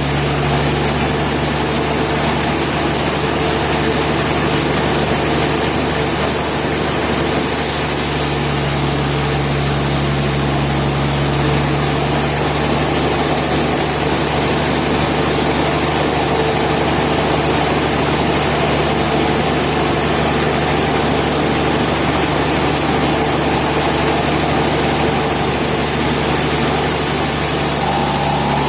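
Steady engine-like machine drone with a low hum, even in level with no breaks or changes.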